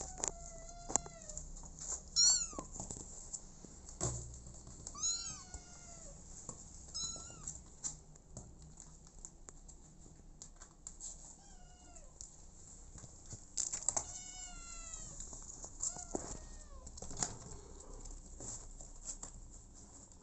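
Young kitten meowing over and over, about ten short high-pitched cries, each rising then falling in pitch, one every second or two.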